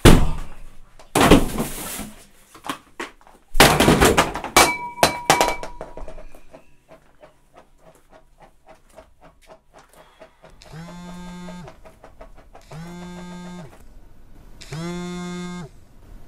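Kitchen things being knocked and thrown to the floor: several loud crashes and clatters in the first six seconds, one with a short ringing tone after it. Later a mobile phone rings three times with a buzzing tone, each ring just over a second long and about two seconds apart.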